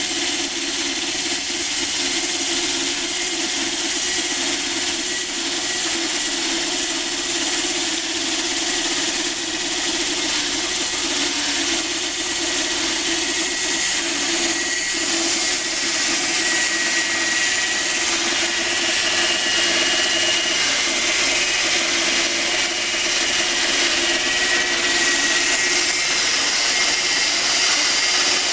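Homemade bandsaw sawmill cutting through a log: a steady, unbroken run of motor and blade noise, with a faint high whine joining in during the second half.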